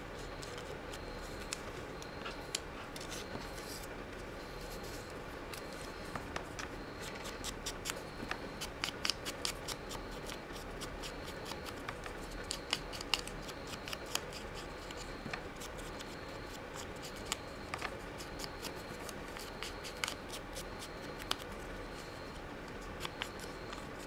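Small ink dauber tapped and rubbed along the edges of book-page paper scraps: quick light taps and papery scratches, coming in clusters, over the steady hum of an electric fan.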